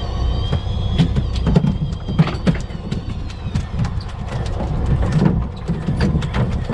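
Steady low rumble on a fishing boat's deck, with irregular sharp clicks and knocks throughout.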